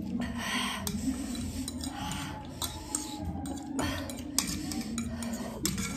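Eating utensils clinking and scraping against bowls while noodles are eaten, in scattered sharp clicks.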